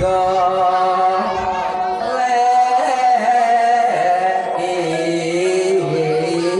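Javanese song with instrumental accompaniment: a voice holds long, slightly wavering notes, first high, then dropping lower about four and a half seconds in.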